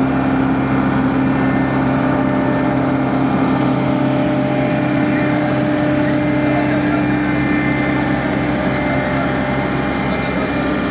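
An engine running steadily at constant speed, a loud, even hum whose pitch does not change.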